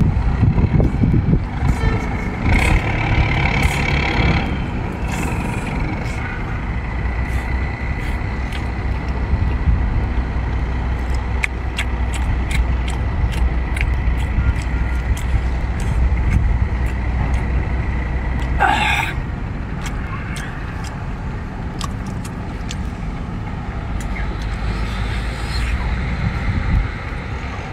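Mukbang eating sounds: a man chewing and slurping sauce-coated octopus and seafood, with wet clicks and smacks, over a steady low rumble. A thin steady high tone runs through the middle part.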